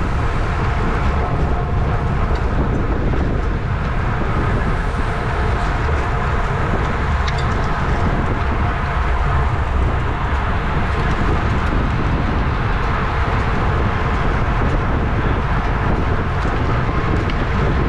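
Steady rush of wind over a bike-mounted camera's microphone while riding in a criterium bunch at about 25 mph, heaviest at the low end, with faint tyre and drivetrain noise beneath it.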